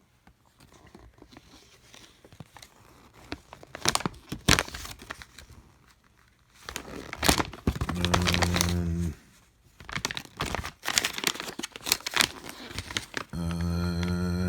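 Paper crinkling and handling clicks, then a small cordless screwdriver's motor whirring steadily twice, each run about a second long, once mid-way and once near the end.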